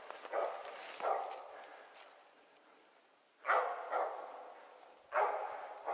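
Hunting laika barking: several short barks, each trailing off with a short echo, with a pause of about two seconds in the middle.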